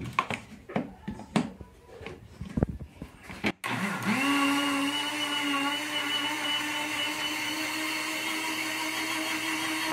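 A few knocks and clicks of the blender being handled, then about four seconds in a Mondial countertop blender's motor starts, quickly rising in pitch, and runs steadily as it purées leafy greens with water.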